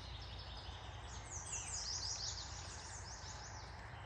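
A songbird singing outdoors: a rapid series of short, high, falling notes, densest about a second and a half in, over a faint low steady rumble.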